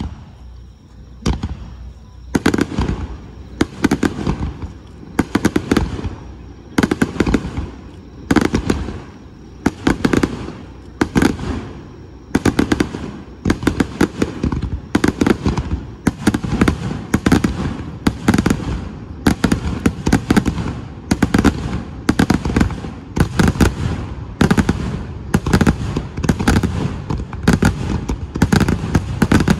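Aerial fireworks shells bursting in a near-continuous barrage, about one big boom a second with crackling and smaller bursts between, starting about a second in.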